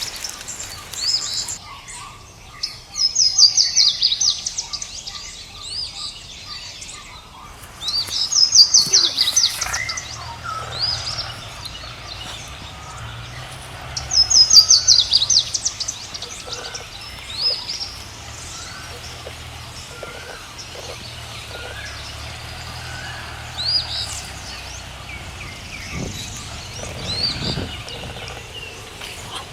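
Wild birds singing: one bird gives a rapid run of high notes every six seconds or so, with fainter chirps from other birds in between.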